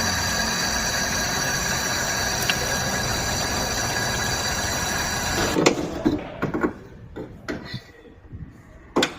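Maruti Wagon R engine, diagnosed for a cylinder misfire, running steadily with a high whine, then cutting out with a loud knock about five and a half seconds in. A few scattered clicks and knocks follow, with one sharp knock near the end.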